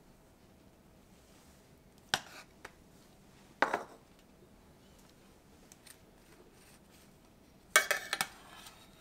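Metal kitchen tongs clicking and clinking against an enamel baking dish. Two single sharp clicks come a little after two seconds and again about a second and a half later. A louder cluster of clinks comes near the end as a slice of bread is laid into the coffee-and-egg soak.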